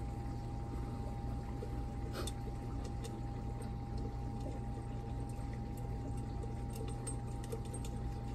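Steady mechanical hum with a constant whine, the background of an engine room. A few faint light clicks sound over it as metal pump fittings are handled.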